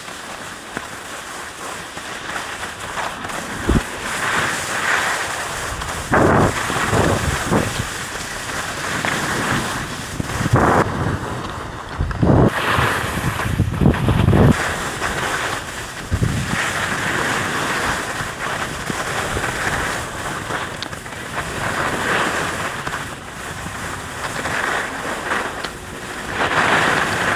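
Skis scraping and hissing over hard-packed groomed snow on a downhill run, with wind buffeting the microphone in uneven gusts.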